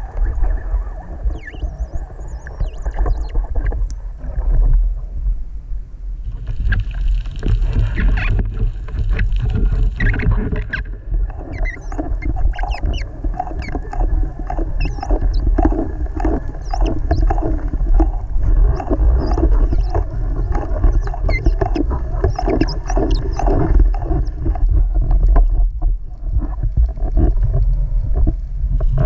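Underwater sound picked up by a speargun-mounted camera: a steady low rumble of water moving past the housing, with scattered crackling clicks throughout.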